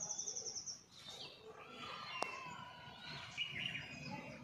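Small birds chirping and calling, opening with a rapid high trill of quick repeated notes lasting under a second. A single sharp click about two seconds in.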